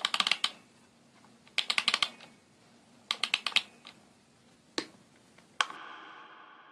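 Three quick bursts of rapid mechanical clicking, then two single clicks, opening a performance soundtrack. Near the end a bright chime-like note rings out and slowly fades.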